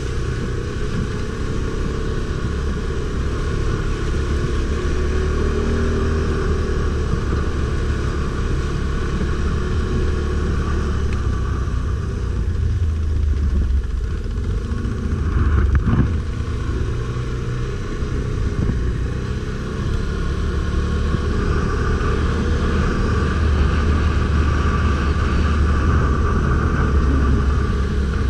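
Stels Guepard 850 ATV engine running steadily while riding off-road. A single knock or thump comes about sixteen seconds in.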